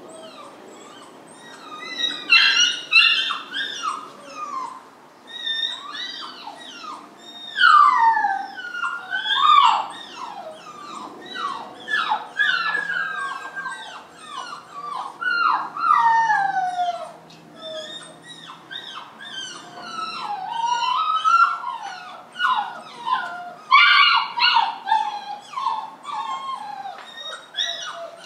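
Young puppy shut in a wire crate, whining and yelping over and over in short, high cries that slide down in pitch, with a few brief lulls: distress cries at being confined.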